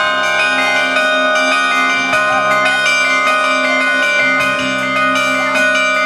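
Mobile carillon of tuned bells playing a tune: quick struck notes, each bell ringing on under the next.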